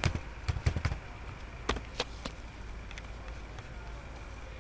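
Computer keyboard keystrokes: a quick run of key taps in the first second, then three single clicks spaced a few tenths of a second apart, over a faint steady hum.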